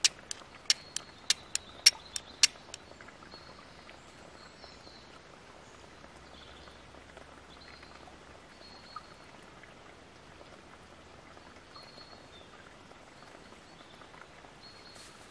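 Flint and steel striking, a quick series of about nine sharp clicks at roughly three or four a second to throw sparks onto char cloth, stopping about two and a half seconds in.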